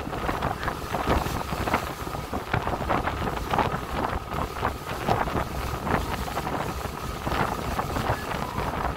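Wind buffeting a phone's microphone in uneven gusts on the open deck of a moving ferry, over the ferry's steady low rumble under way.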